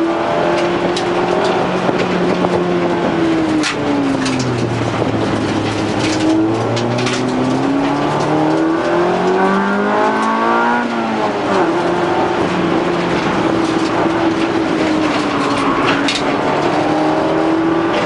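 Honda Civic race car's four-cylinder engine heard from inside the cabin under hard track driving. Its note sags and climbs again through a corner, then rises steadily for several seconds and falls sharply at an upshift about eleven seconds in, with a few sharp knocks along the way.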